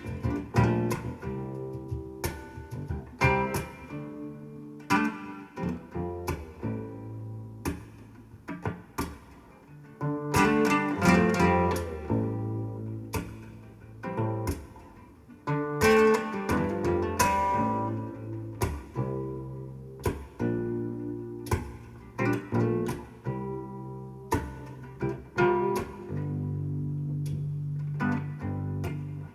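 Recorded music played back over a hi-fi loudspeaker system: an instrumental passage of plucked guitar notes over a sustained bass line, with no singing.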